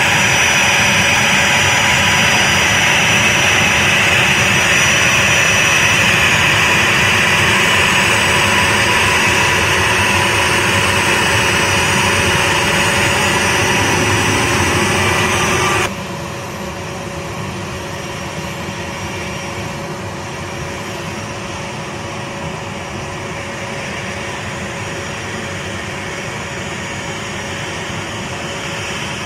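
The two TF34 turbofan engines of an A-10C Thunderbolt II running on the ground: steady jet noise with a high whine. About halfway through, the level drops suddenly, and the quieter engine sound runs on steadily.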